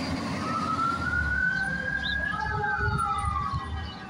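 Fire engine's siren wailing as the truck drives off on a call: one slow rise in pitch over about two seconds, then a fall, over the low rumble of the engine and traffic. It grows fainter near the end as the truck pulls away.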